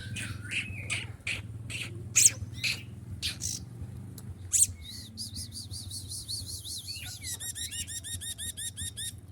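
A kolibri ninja sunbird singing: sharp, high-pitched notes and short phrases, then a fast trill of repeated chirps, about eight a second, that stops near the end. A faint low hum sits underneath.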